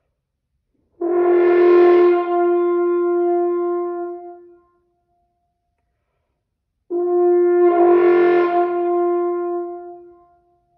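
French horn holding two long notes on the same pitch, each about three and a half seconds, with flutter tongue switched on and off inside each note so that a rough buzzing flutter alternates with plain tone.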